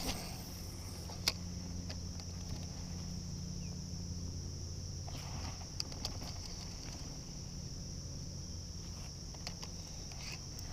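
Steady high-pitched chorus of insects, with a low steady rumble underneath and a few sharp clicks, one about a second in and another near six seconds.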